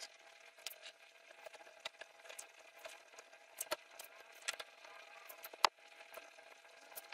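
Faint handwork on an axe's tape-wrapped wooden handle where it meets the steel head: light scratching and picking at the tape, with a few sharp, scattered ticks.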